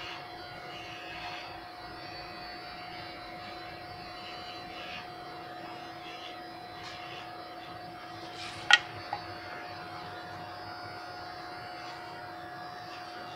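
Electric pet hair clipper running with a steady hum while trimming a dog's face and ear fur. About nine seconds in there is a sharp knock, the loudest sound, followed by a smaller one.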